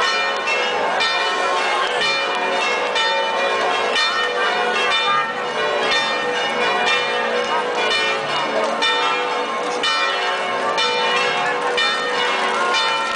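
Church bells ringing a continuous peal, strokes following each other quickly and their tones overlapping.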